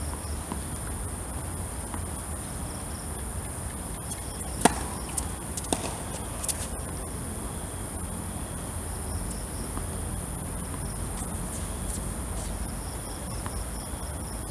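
Tennis ball struck by a racket with a sharp pop about four and a half seconds in, followed by a few quieter hits and bounces on the hard court over the next two seconds. Steady high-pitched insect chirring runs underneath.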